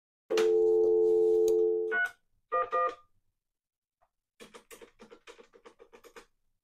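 Dial tone from a single-slot Touch-Tone payphone handset, then three Touch-Tone beeps dialling 3-1-1. After that comes a fast run of about a dozen keypad clicks with no tones: the payphone's dial has been disabled by the dial-tone-first coin controller.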